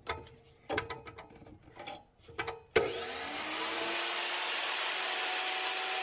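A few light knocks and clicks, then about three seconds in a chop saw is switched on with a sharp click. Its motor spins up with a rising whine and runs steadily at speed, the blade not yet cutting.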